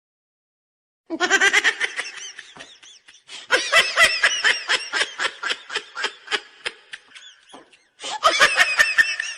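High-pitched laughter in three hearty bouts, starting about a second in, with quick repeated 'ha' syllables and a short break between bouts.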